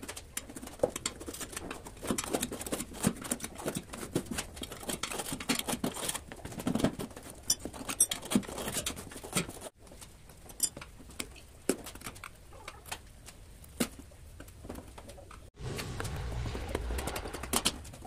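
Steel tyre levers clicking, knocking and scraping against a spoked motorcycle wheel's steel rim as the tyre bead is levered onto it: a long run of short, irregular metallic clicks and scrapes.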